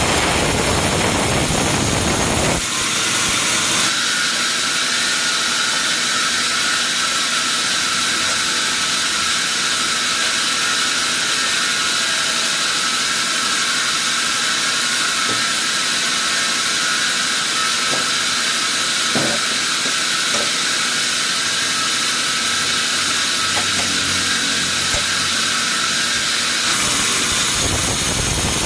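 Sawmill saw running through a log: a steady, high-pitched hiss with a thin whine over it, the low machinery rumble dropping away about two and a half seconds in and returning near the end.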